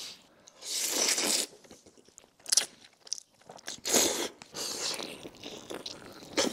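Crunching bites and chewing on a sauced, pan-fried chicken cutlet, heard close up as a few separate bites with quiet gaps between, the loudest about four seconds in.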